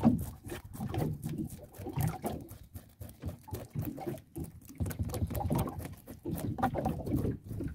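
Knives scraping the scales off small snook (robalo), a rapid run of short rasping strokes on the fish and the wooden cutting board.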